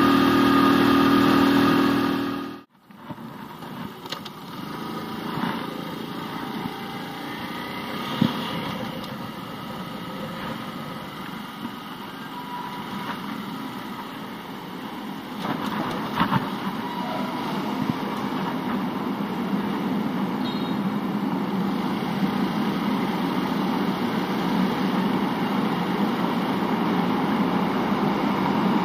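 Small step-through motorcycle engine running steadily while riding, cut off suddenly. The engine then runs again at low speed, with a couple of sharp knocks and a steady hum that grows louder on the ferry's enclosed vehicle deck.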